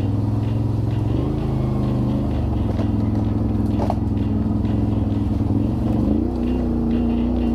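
A vehicle engine running steadily at low revs, its pitch shifting slightly about a second in and again about six seconds in. There is a brief short squeak near the middle.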